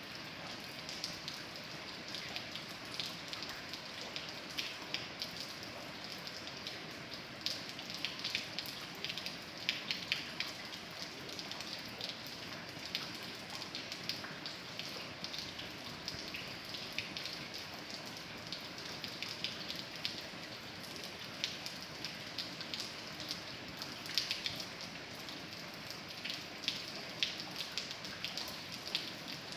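Steady rain, with many individual drops ticking on a surface.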